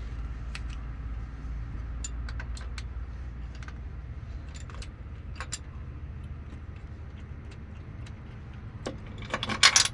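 Engine idling steadily, with scattered light metallic clicks and a short burst of loud clinking near the end, like metal tools or parts being handled.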